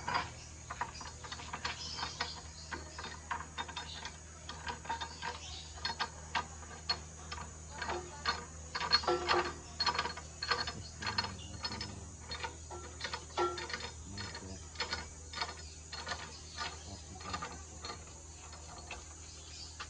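Bosch GCO 220 cut-off machine's quick-clamp vise being worked by hand, its threaded lead screw turned and slid to make a run of irregular metal clicks and ratcheting rattles.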